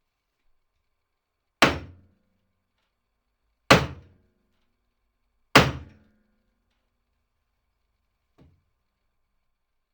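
Three heavy thunks about two seconds apart, each dying away quickly, then a faint tap near the end.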